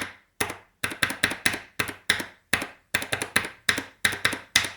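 Kailh Box Purple mechanical keyboard switch on a switch tester, pressed and released over and over. It gives a run of sharp plastic clacks, about four a second.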